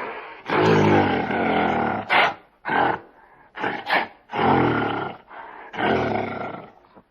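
A large animal roaring: three long, deep roars with short grunts between them.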